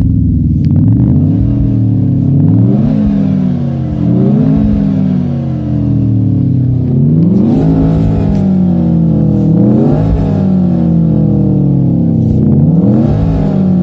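Renault Clio RS Monaco GP's engine note revving up and falling back, about five times over, each rise quick and each fall slower.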